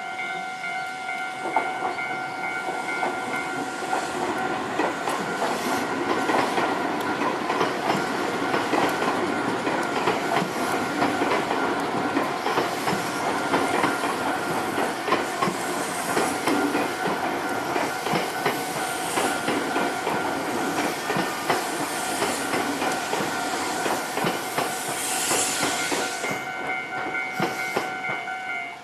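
A railway level-crossing alarm rings steadily while a Nankai Kōya Line train passes over the crossing, its wheels clacking over the rail joints for most of the time. The train noise fades about two seconds before the end, and the alarm stops just after.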